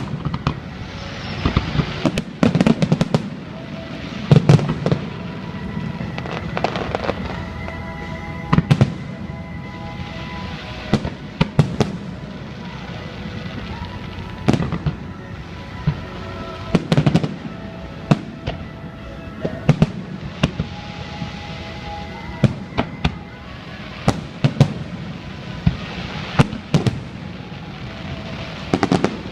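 Aerial fireworks bursting: a steady run of sharp bangs, one every second or two, some in quick clusters of two or three.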